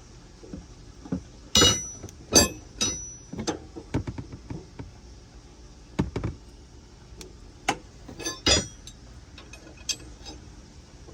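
A 2016 Ford Expedition's spare-tire winch being cranked counterclockwise with the jack's hook tool and extension rod to lower the spare: irregular metal clanks and clicks as the tool turns and knocks in the access hole, a few of them much louder than the rest.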